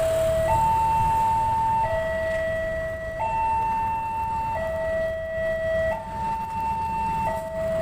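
Railway level-crossing warning alarm sounding a steady two-tone signal, a higher and a lower tone alternating about every 1.3 seconds, warning that a train is approaching.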